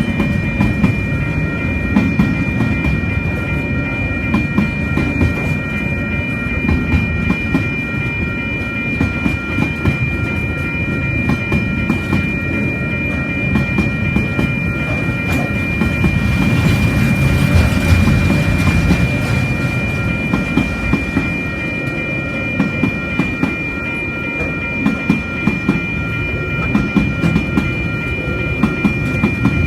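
Train hauled by DFT and DXB diesel-electric locomotives rolling past with a continuous heavy rumble and clatter of wheels on the rails, swelling a little about two-thirds of the way through. A steady high ringing of a few tones sounds over it.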